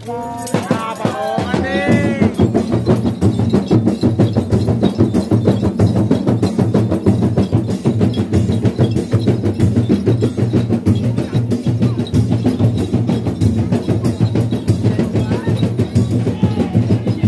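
A group of rebana frame drums beaten by hand in a fast, dense, steady rhythm, starting about half a second in. This is the parrawana drumming that accompanies the Sayyang Pattu'duq dancing horse.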